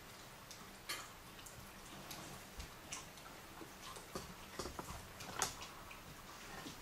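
A dog eating fish, chewing and smacking its mouth: faint, irregular wet clicks, the sharpest about five and a half seconds in.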